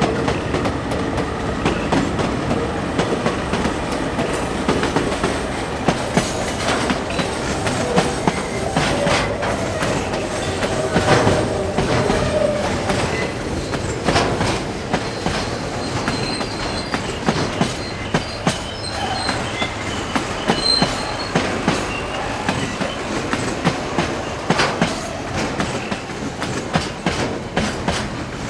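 Train rolling past, its wheels clacking steadily over rail joints, with faint wheel squeal in the middle stretch.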